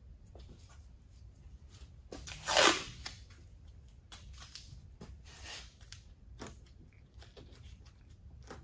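Painter's tape pulled off the roll and torn, the loudest rasp about two and a half seconds in and a weaker one about halfway through, amid rustling and small clicks of gloved hands handling tape and rubber seal on the metal deck lid.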